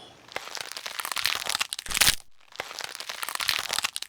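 Dense crinkling, crackling rustle, louder about two seconds in, with a brief break just after that.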